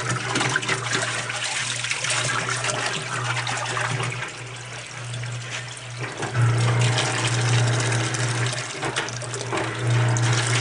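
Water from a garden hose spraying and splashing inside the tub of an old Kenmore wringer washing machine as it is rinsed out. The rush swells louder at times, over a steady low hum.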